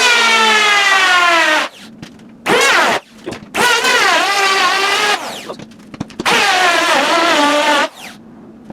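Performax 3-1/4" electric hand planer running in four bursts of one to two seconds. Each burst cuts off abruptly. The motor's whine sags and wavers in pitch as it planes.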